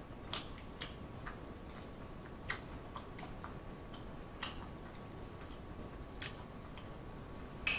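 Close-miked chewing of barbecue rib meat: scattered soft wet mouth clicks and smacks, one or two a second, with a louder smack near the end.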